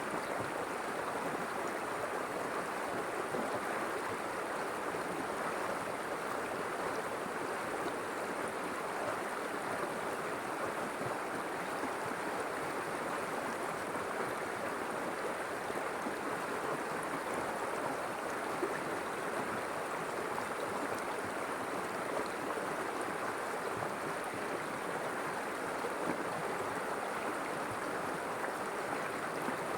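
River water flowing steadily over rocks: a continuous, even rush and gurgle that holds the same level throughout.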